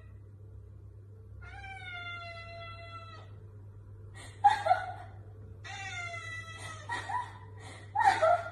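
Tabby cat meowing several times: long drawn-out meows falling slightly in pitch, and shorter, louder ones in quick pairs about halfway through and near the end.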